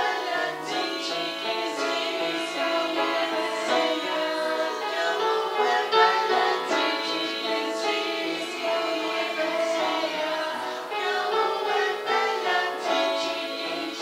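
A small amateur choir of girls and women singing a song together, with their conductor's voice joining in; the singing carries on without a break.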